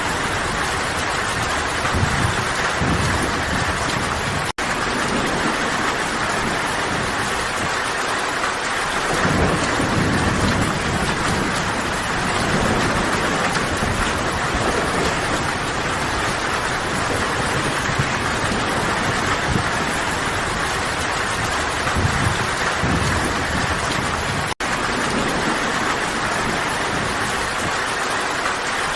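Steady rain falling in a dense, even hiss, with low rumbles of thunder swelling several times, the longest about a third of the way in. The sound drops out for an instant twice.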